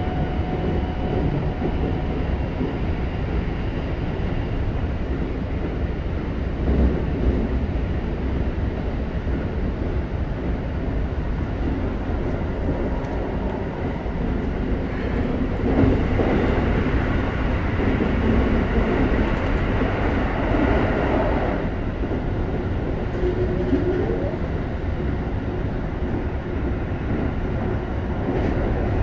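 Running noise inside a Keikyu 1000 series electric train car, Mitsubishi full-SiC VVVF set: a steady rumble of wheels on the rails that swells and eases as the train travels.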